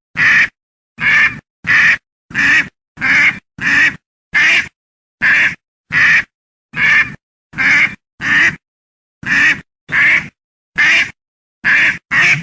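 Duck quacking: a long run of separate short quacks, one or two a second, with silence between each.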